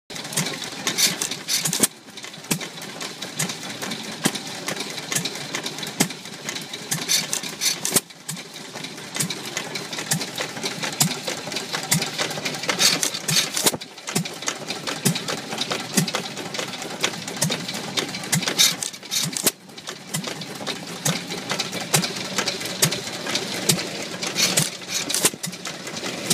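Majestic hit-and-miss engine running: a rapid clatter of clicks from its valve gear and mechanism, with a louder burst about every six seconds as it fires and then coasts.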